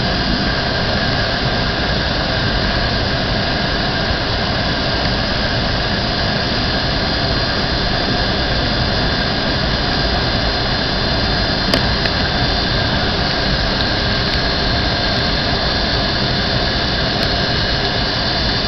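Airliner cabin noise on approach: the jet engines and rushing air make a steady, even sound with a few steady whining tones over it. There is one brief tick about two-thirds through.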